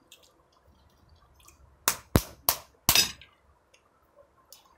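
Cooked crab shell cracking: four sharp cracks in quick succession about two seconds in.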